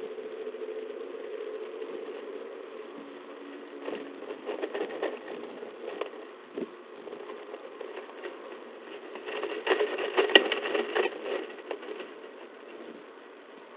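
Bursts of scraping and clicking inside a peregrine falcon nest box, heard through a narrow-band webcam microphone. A low hum fades over the first few seconds. The clicks come in a cluster about four to six seconds in, and in a louder one about ten to eleven seconds in.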